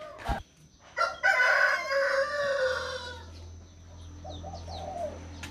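A rooster crows once, a loud call of about two seconds that falls in pitch at the end, followed a second later by a shorter, softer call.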